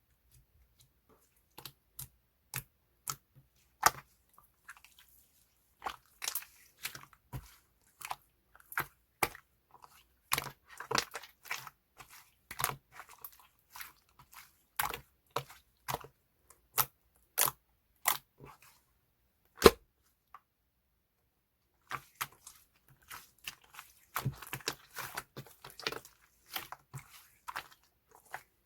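Mixed slime being squished and pressed by hand, giving irregular sharp clicks and pops of trapped air. The pops come singly at first, pause for a couple of seconds near the end, then return as denser crackling.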